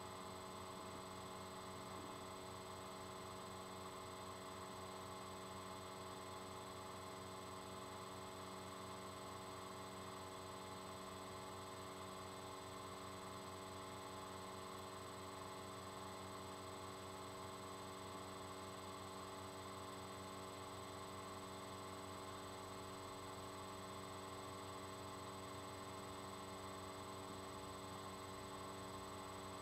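Steady electrical hum made of several constant tones, with a thin high whine above it and no other sound.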